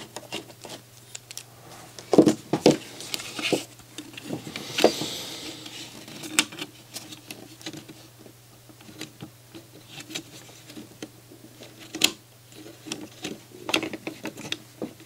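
Irregular small plastic clicks, knocks and rattles of a CD player's disc loading mechanism being moved and handled by hand, with a brief scrape around five seconds in and a few sharper knocks about two and twelve seconds in.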